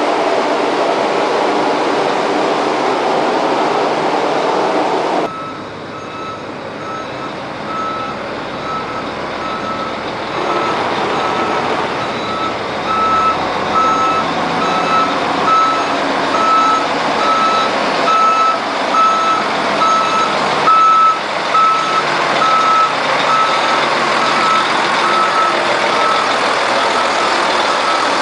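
A tanker truck's reversing alarm beeps steadily with evenly spaced short beeps as the truck backs into a tight loading bay, its engine running under them. The beeping starts about five seconds in, after a stretch of steady noise.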